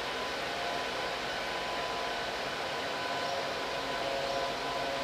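Large all-terrain mobile crane's diesel engine running steadily, an even mechanical noise with a faint, constant whine over it.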